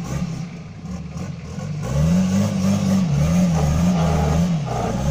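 Toyota Land Cruiser engine revving while it tries to climb a rock ledge. The revs rise about two seconds in, then rise and fall in several quick throttle pulses, dip briefly near the end and pick up again.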